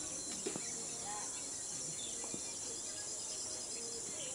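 Steady high-pitched drone of insects, with a few faint bird chirps and a couple of faint clicks.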